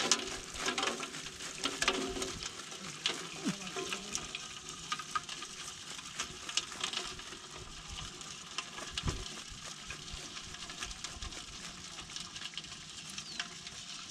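Water, mud and small fish being shaken out of a bamboo fish trap into a plastic basin: a dense wet crackle of many small clicks and splashes. It is loudest in the first two seconds.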